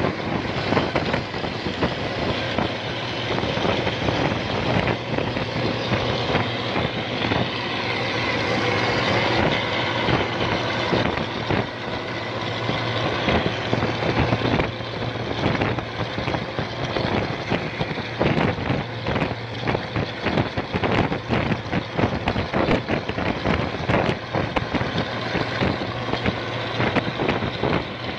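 Two buses running side by side at speed, a steady engine drone under dense road and wind noise.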